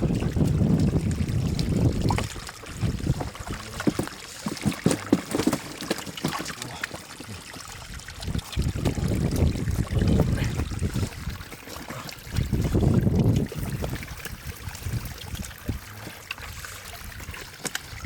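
Water trickling and splashing, with a run of short splashes a few seconds in and several low gusts of wind buffeting the microphone.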